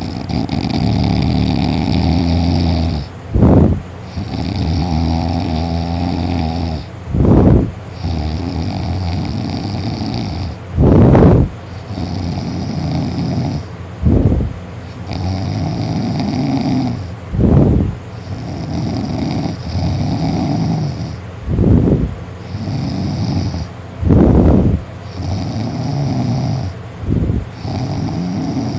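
A man snoring loudly in deep sleep after drinking, his soft palate rattling. Long snores of about three seconds alternate with short, louder bursts, in a steady cycle roughly every three and a half to four seconds.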